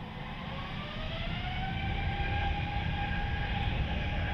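Jet airliner's engines spooling up: a whine rises in pitch over the first two seconds and then holds, over a low rumble that keeps growing louder.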